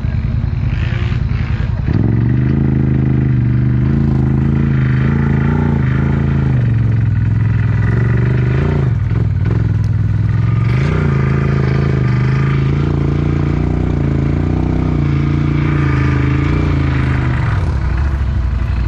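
ATV engine held at steady high revs as the quad works through deep mud, with other quads running underneath. The revs dip and pick up again about halfway through, and drop off near the end.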